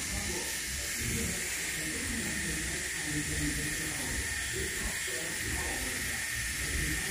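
Pen-style rotary tattoo machine running steadily, a constant high whine over an even hiss.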